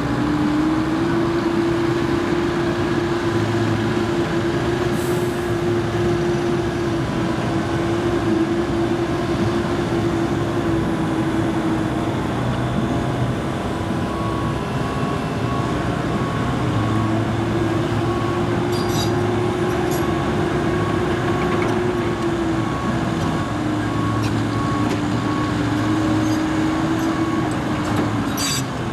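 Case CX75C SR mini excavator's diesel engine running under load while it digs, with the hydraulics working the boom and bucket. The engine note holds steady, sags for a few seconds midway, then rises again and drops near the end. A faint, regular beeping runs through the second half.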